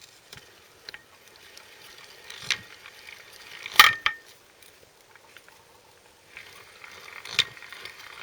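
Geartrain of a Honda CBF125 engine turned over slowly by hand, giving three sharp metallic knocks, the loudest about four seconds in. Each knock is one raised tooth on the clutch ring gear, sprung away from its plate, banging on the mating cog as it comes round: the source of the engine's knock.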